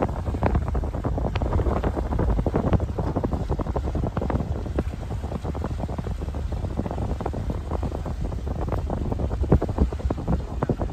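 Wind buffeting the microphone: a steady low rumble with frequent crackles throughout.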